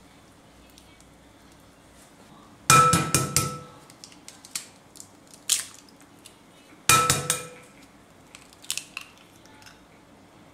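Two eggs knocked one after the other against the rim of a glass mixing bowl. Each knock is a sharp clink with a brief ringing of the glass, about four seconds apart, and lighter clicks and taps of eggshell follow each one.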